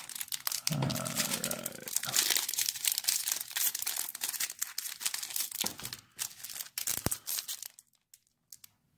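Foil wrapper of a Topps baseball card pack being torn open and crinkled by hand, a dense crackling that stops about a second before the end.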